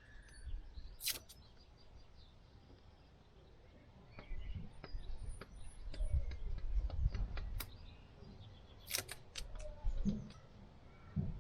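Scattered sharp clicks and light knocks from brake pads and tools being handled, with a low rumbling stretch in the middle, and faint bird chirps in the background.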